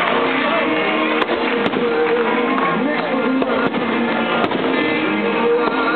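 Music playing, with several sharp bangs of aerial firework shells bursting over it.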